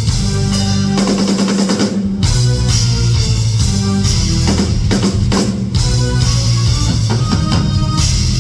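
Live electric guitar and drum kit playing an instrumental rock passage: long held guitar notes over steady drumming.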